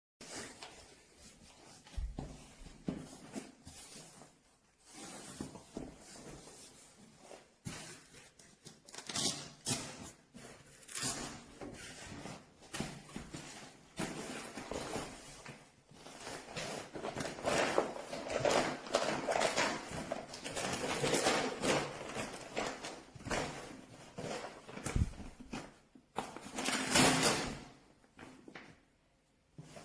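Irregular rustling and knocking handling noises, in uneven bursts with short clicks, busiest in the second half.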